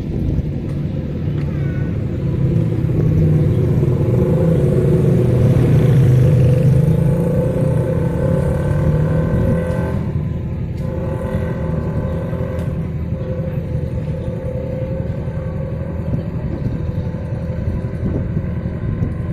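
Motor vehicle engine running, a low steady hum that swells to its loudest about six seconds in and then eases back to a steadier level.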